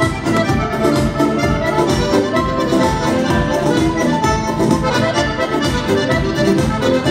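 Button accordion playing a lively dance tune over a steady bass beat of about two thumps a second.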